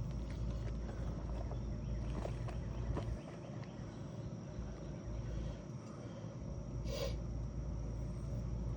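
Outdoor ambience on a roof: a steady low rumble of wind on the microphone under a thin, steady high insect drone, with a few faint taps and a short rustle about seven seconds in as shingles are handled.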